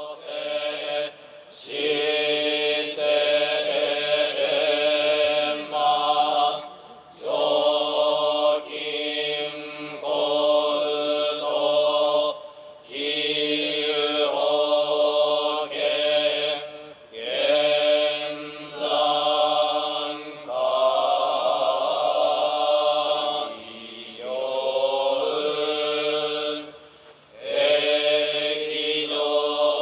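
Shōmyō, Japanese Buddhist liturgical chant: a group of monks chanting together in long, held phrases of a few seconds each, with short breaks for breath between them.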